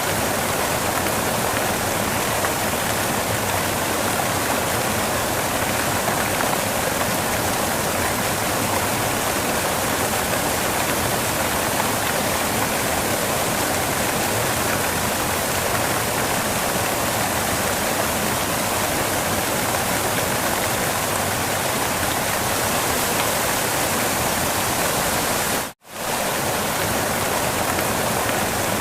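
Waterfall rushing steadily, a constant hiss of falling water. It cuts out for a moment near the end, then resumes as before.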